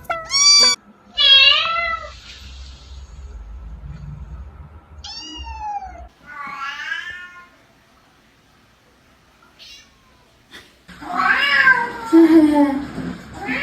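Domestic cat meowing several times: short calls that bend in pitch, a few seconds' pause, then a louder, wavering, drawn-out meow near the end.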